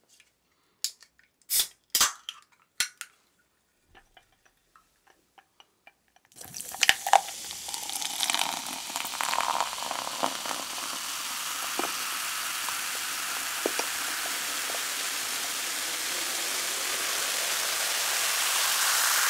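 A soda can is cracked open with a few sharp clicks in the first three seconds. About six seconds in, cola starts pouring into a tall glass: a steady fizzing gush that grows louder and rises in pitch as the glass fills.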